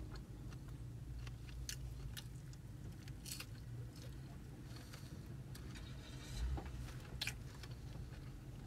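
A person chewing and biting takeout food, with scattered soft clicks and crunches from bites and a plastic fork against the tray, over a steady low hum inside the car.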